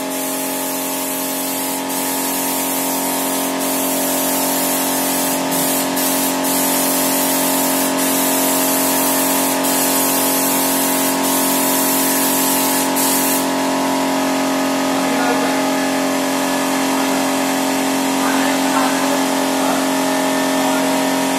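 Portable piston air compressor running with a steady hum. Over it the spray gun hisses as polish is sprayed, in runs broken by short pauses of the trigger, and stops about halfway through.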